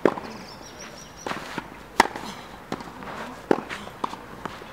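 Tennis ball struck hard by rackets in a baseline rally on a clay court: three sharp pops about one and a half to two seconds apart, with softer bounce and footstep sounds between.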